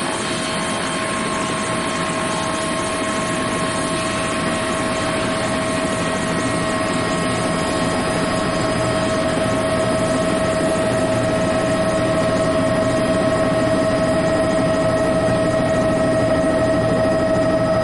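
Bell 206 JetRanger helicopter running on the ground, heard from inside the cabin: the turbine engine's steady whine over the rotor noise, growing gradually louder as the engine is brought up on the throttle.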